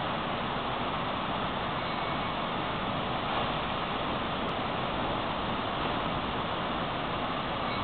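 Steady, even noise from a Kintetsu 1026 series electric train standing at the platform before departure, with no distinct events.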